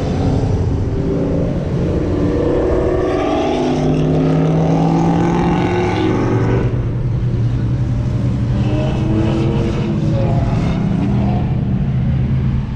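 Road traffic passing close by: car and truck engines running steadily, with one vehicle accelerating past between about two and six seconds in.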